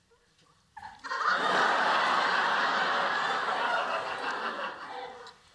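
Studio audience laughing, coming in suddenly about a second in and fading away near the end.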